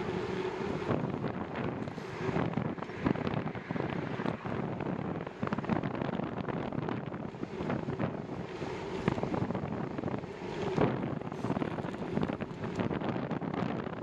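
Wind rushing over the microphone of a camera on a moving bicycle: a steady, rough noise broken by many short crackles.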